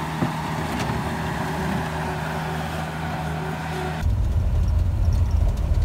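Bobcat T190 compact track loader's diesel engine running steadily with an even hum. About four seconds in it cuts to the deeper, louder rumble of a vehicle driving, heard from inside the cab.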